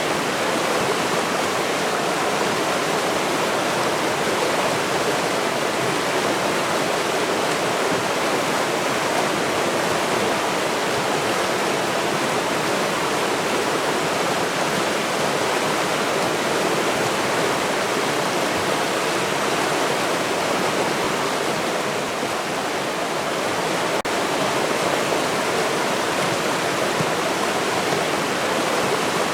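River water flowing, a steady, even rush with no breaks.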